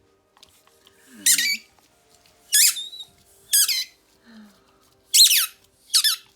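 German Shepherd whining in five short, high squeaks through a ball held in her mouth, each sliding down in pitch.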